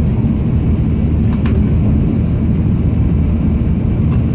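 Steady low rumble of an N700 series Shinkansen running at speed, heard inside the passenger car, with one brief faint click about a second and a half in.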